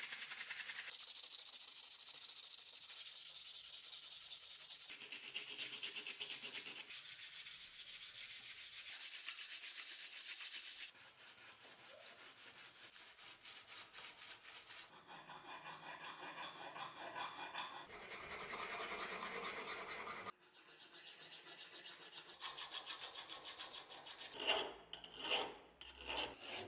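Sandpaper rubbed by hand, fast and back and forth, over the steel of a rusty axe head, heard in a run of short clips. Near the end a hand file rasps across the axe bit in separate, louder strokes.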